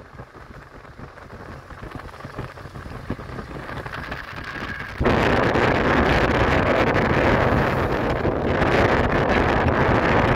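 Wind buffeting the microphone of a moving car, with road noise underneath, rising slowly and then jumping suddenly to loud about five seconds in.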